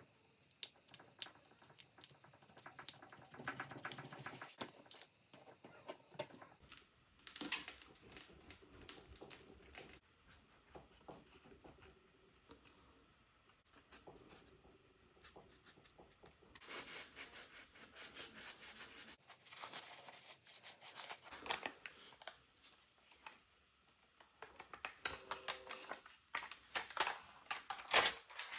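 Small repair tools clicking and scraping on a phone during a screen and back-glass replacement: irregular runs of quick clicks and scratches, with the densest, loudest clatter near the end.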